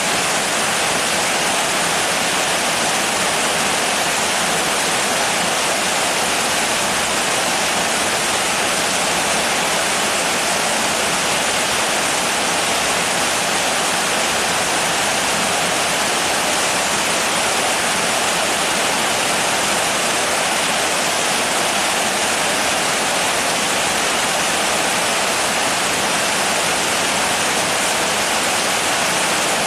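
Steady heavy rain: an even, unbroken hiss with no single drops standing out.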